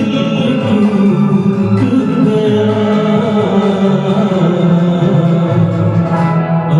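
A Hindi song sung over instrumental backing music.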